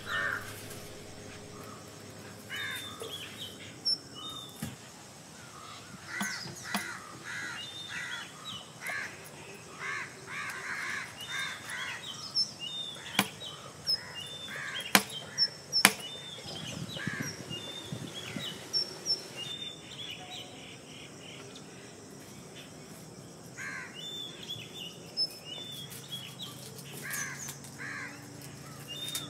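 Birds calling outdoors: crows cawing and smaller birds chirping in short calls throughout. Three sharp knocks from a knife striking a wooden chopping board stand out partway through.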